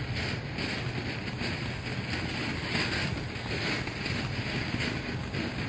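Ground fountain firework spraying sparks with a steady hiss, over a low rumble of wind on the microphone.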